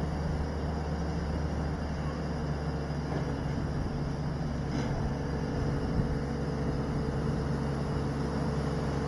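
An engine running steadily: a low, even hum that holds the same pitch throughout, over a wash of background noise.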